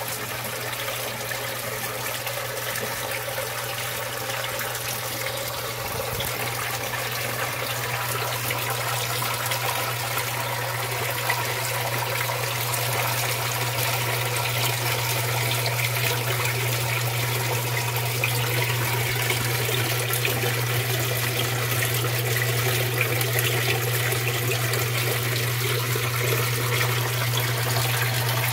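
Water from an aquarium filter outlet trickling and splashing steadily into a tub of water, over the steady low hum of the filter pump. It grows slightly louder over the first half.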